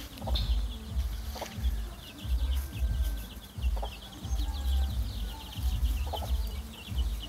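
Chicks peeping rapidly and continuously, with a hen clucking a few times. A low rumble swells and fades about once a second under them.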